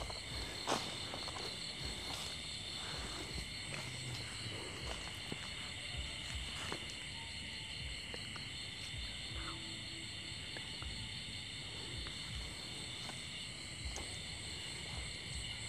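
Steady chorus of night insects, several high-pitched trills sounding at once, with scattered soft crackles of footsteps on dry leaf litter.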